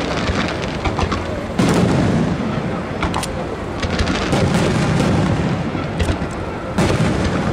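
Aerial firework shells bursting: a run of booms with a rumbling echo, the loudest about a second and a half in and again near the end, with sharper single reports in between.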